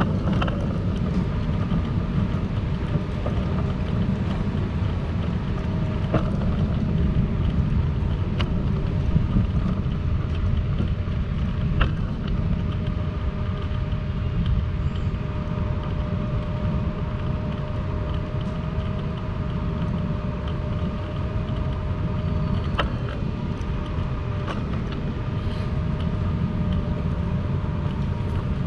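Outdoor street ambience dominated by a steady low rumble, with a faint steady tone through the middle and a few sharp clicks.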